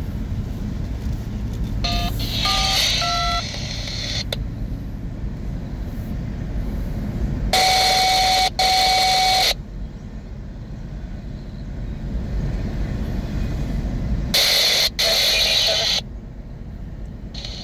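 Railroad radio scanner: a quick run of touch-tone dialing tones a couple of seconds in, then two loud stretches of a steady electronic tone with static, about two seconds each, near the middle and near the end. These are the radio tones an engineer uses to call the dispatcher. Under it there is a steady low rumble.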